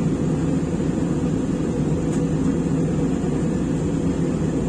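Steady cabin drone of an airliner in cruise flight, its engine and airflow noise heard from inside the passenger cabin, low and even throughout.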